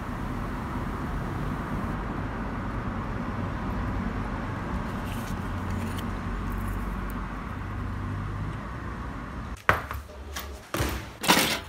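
A steady low rumble of background noise, then, near the end, a few sharp knocks from feet stepping into leather sandals on a wooden parquet floor.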